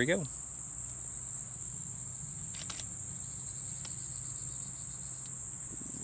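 A steady, high-pitched chorus of insects, with a faint double click of a DSLR shutter firing on its self-timer about two and a half seconds in.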